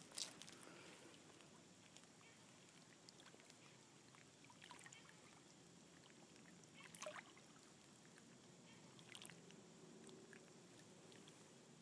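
Faint lapping of shallow lake water at the shore, with a few small splashes, the clearest about seven seconds in.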